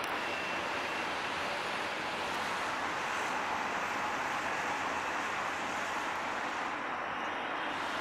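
Steady outdoor background roar, even throughout, with no distinct engine note or horn.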